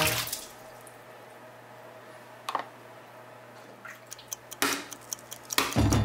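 Light clicks and knocks of an eggshell against a plastic colander and bowl as a wet boiled egg is picked up, after a quiet stretch broken by one light tap. Music starts just before the end.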